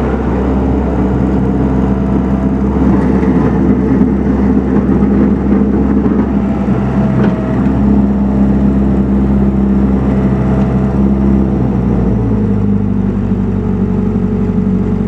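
Case 1845B skid steer loader's diesel engine running steadily. Its note shifts lower about twelve seconds in.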